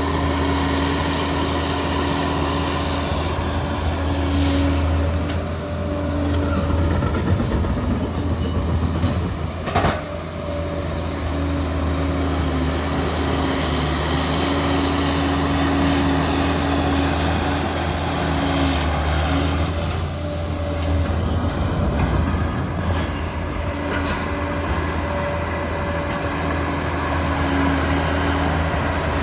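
Liebherr 746 crawler bulldozer working, its diesel engine running steadily under load, with a sharp knock about ten seconds in.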